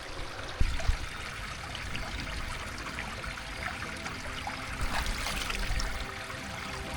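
Water trickling and running in a small stream, a steady flow, with a couple of low bumps about half a second in.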